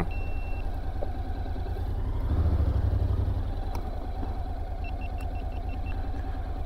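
Motorcycle engine running at low speed as the bike rolls slowly, with a steady pulsing rumble. It gets louder briefly about two seconds in, then settles back.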